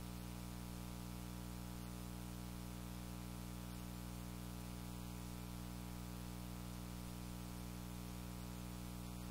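Steady electrical mains hum with many evenly spaced overtones, under a constant hiss, with no music.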